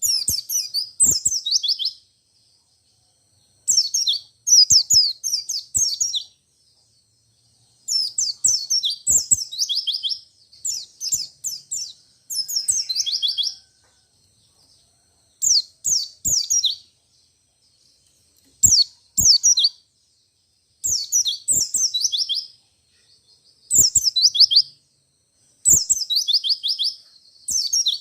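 White-eye (pleci) singing in short, rapid bursts, about a dozen phrases of quick high notes that fall in pitch, each phrase lasting a second or two with brief gaps between.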